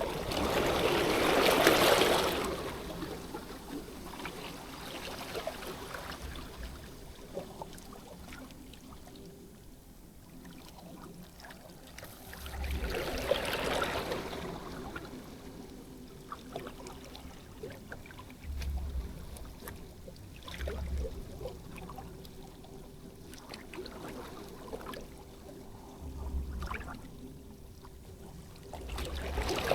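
Water washing against the shore, swelling loudly three times: at the start, about halfway through, and at the end. A few short low thumps come in between.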